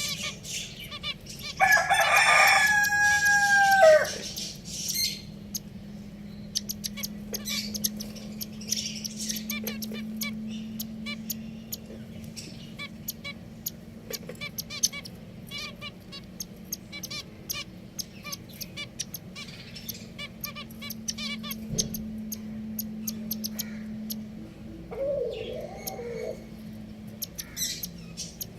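A rooster crows once, loudly, for about two seconds near the start, its call held and then dropping at the end. Around it, pet finches chirp in a steady run of short, quick calls, over a low steady hum, with another short wavering call near the end.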